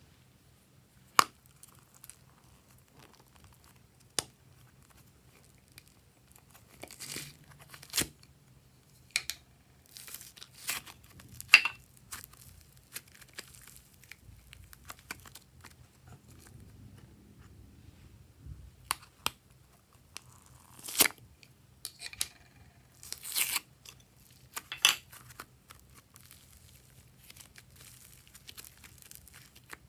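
Slime being handled by hand: irregular sharp pops and crackles, with quiet gaps between clusters of them.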